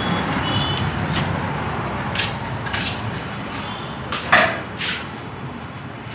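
Steady street traffic noise that fades as the listener moves indoors, with a few short knocks and clatters, the loudest about four seconds in.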